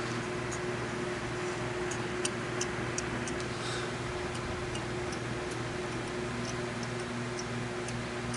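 Fine-grit synthetic hone of a Lansky guided knife-sharpening system drawn lightly along a knife edge: faint scraping with small irregular clicks, over a steady low hum.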